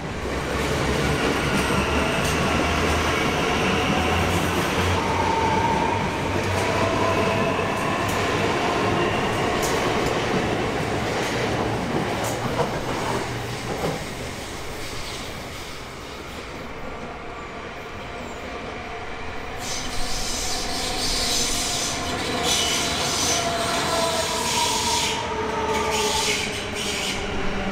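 Melbourne High Capacity Metro Train electric multiple units running through a station: the electric traction drive whines with tones that glide in pitch over a steady rumble of wheels on rail. A train passes close near the end with a run of sharp wheel clicks.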